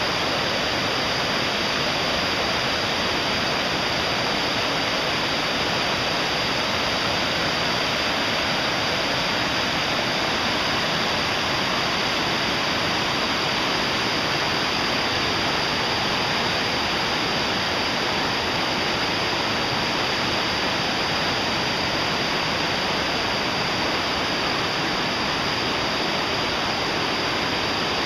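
Fast-flowing mountain stream rushing over boulders in small rapids: a steady, unbroken rush of water.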